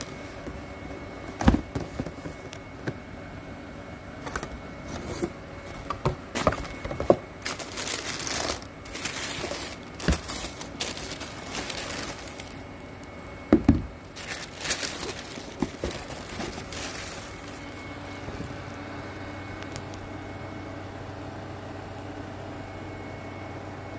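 Tissue paper rustling and crinkling as a sneaker is unwrapped from its cardboard shoebox, with scattered knocks and bumps from the box being handled. The rustling dies away for the last several seconds, leaving a faint steady hum.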